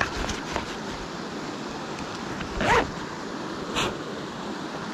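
Steady rush of river water, with fly line swishing twice as it is picked up and cast. The louder swish comes about halfway through and a shorter one follows about a second later.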